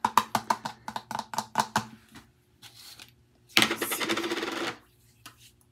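A quick run of about a dozen light hand taps over the first two seconds, then about a second of rustling noise a little past the middle.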